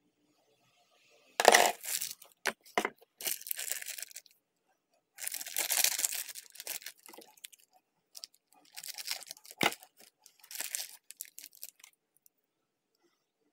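Plastic wrapper being torn open and crinkled in several bursts, the longest in the middle, with a few sharp clicks between them.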